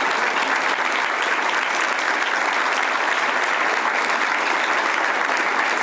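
Applause from a group of people: dense, steady clapping throughout.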